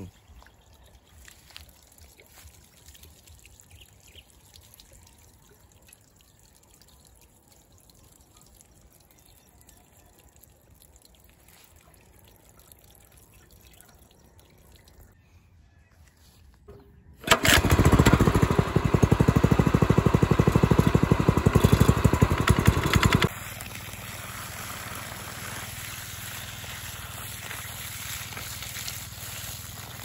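Faint trickling while priming water is poured into a small gasoline water pump. A little past halfway the pump's 6.5 hp engine starts and runs loudly for about six seconds. It then gives way to a steady rush of water gushing from the pump's hose outlet.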